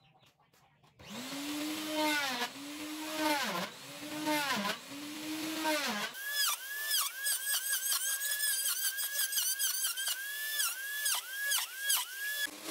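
Handheld electric plunge router starting up about a second in, its motor whine dipping again and again as the bit bites into the wood block, with the hiss of cutting. About six seconds in the whine jumps much higher and goes on dipping in quick, repeated pulls.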